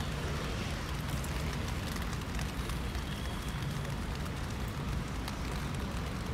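Steady rain pattering on an open umbrella and the car, with many fine drop ticks over a steady low rumble.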